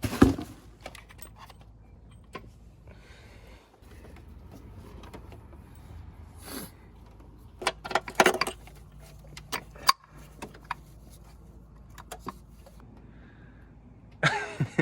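Scattered metallic clinks and rattles of bolts and hand tools being handled while the compressor's mounting bolts are fitted. The loudest clinks come just after the start and in a cluster about eight seconds in.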